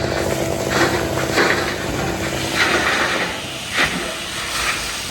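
Tri-axle dump truck dumping a load of asphalt millings: the diesel engine runs steadily under several short hissing rushes, about a second apart, as the load slides out of the raised bed.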